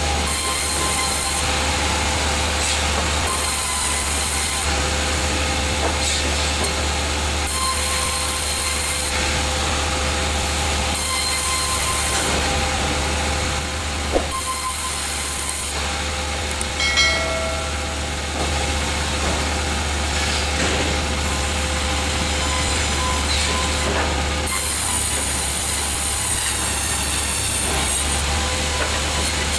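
Sawmill machinery running steadily with a low motor drone, while a hissing cut sound switches on and off every second or two as the saw works through wood. A single knock and a brief squeal come about halfway through.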